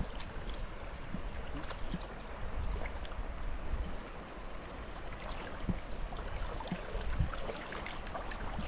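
River water splashing and trickling, with many small scattered splashes and a low wind rumble on the microphone.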